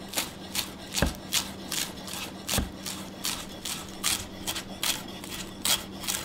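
Chef's knife chopping fresh parsley on an end-grain wooden cutting board: a steady rhythm of blade knocks, about two to three a second, with a couple of heavier knocks in the first few seconds.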